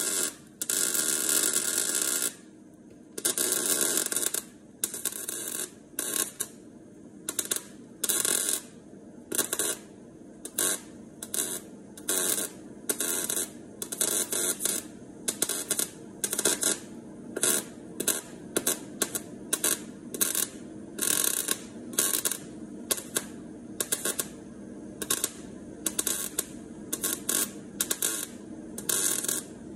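MIG welder arc crackling in short on-off bursts while stitch-welding a replacement steel sill onto a car body: a couple of longer runs at the start, then many quick tacks at a little over one a second.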